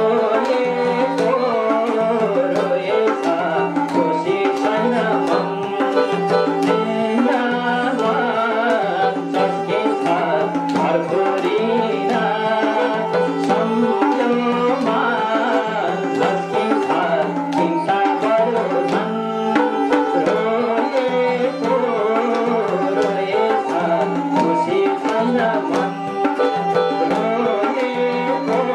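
Nepali folk dohori music: a double-headed hand drum keeps a steady, lively beat under a keyboard melody, with a voice singing in places.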